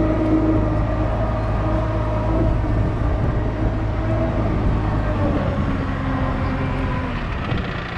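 Diesel engine of a Manitou MT telehandler running steadily as the machine drives slowly, its low note shifting about five seconds in.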